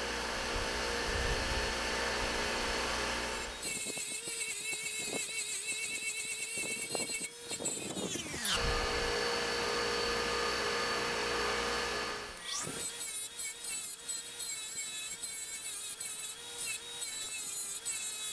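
Bench grinder's wire wheel running with steel arbor press parts, a toothed pinion shaft and a toothed ram, held against it to strip rust: a harsh, scratchy hiss over the motor's whine that changes as the part is worked. A whine falls away about eight seconds in and climbs again a few seconds later.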